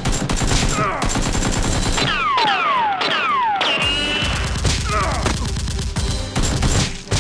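Automatic gunfire sound effect dubbed over a Nerf blaster: rapid shots in long bursts. Several falling whistle-like tones come about two to three seconds in.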